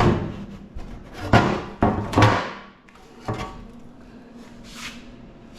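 A series of about five clunks and knocks from the sheet-metal case of an old welder being handled and worked loose, the loudest in the middle, followed by a short hiss near the end.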